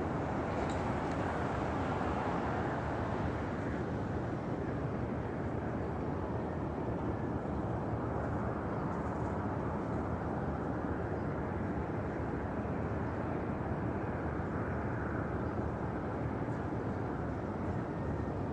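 Steady low rumbling roar with no clear pitch, swelling slightly now and then. It is presented as one of the mysterious 'strange sounds' heard from the sky.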